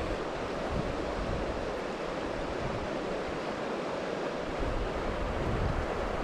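Steady rushing of a shallow river flowing over stones, with wind buffeting the microphone as a low rumble that grows in the second half.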